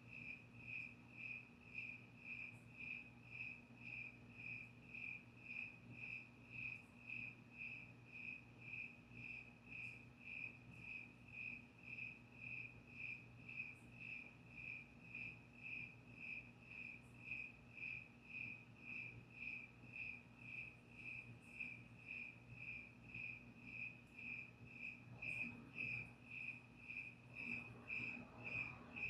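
Cricket chirping in a steady, even rhythm of about two short chirps a second, over a faint steady low hum.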